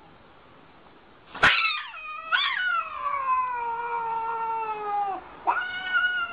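Domestic cat yowling in a defensive caterwaul, back arched against a dog. After a sharp click about a second and a half in come two long, drawn-out yowls: the first rises briefly then slowly sinks in pitch, and the second starts about a second before the end.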